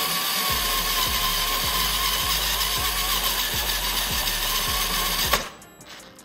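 Cordless drill running steadily, its motor whining as the bit bores a hole through an aftermarket plastic mirror cap. It stops suddenly about five seconds in.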